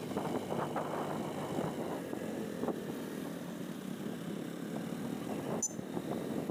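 Motorcycles riding along a road: steady engine and road noise mixed with wind on the microphone, with a short sharp click about five and a half seconds in.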